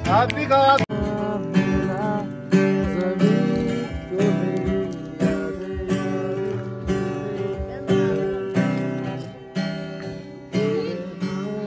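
Acoustic guitar strummed in a steady rhythm of chords, with a line of singing in the first second.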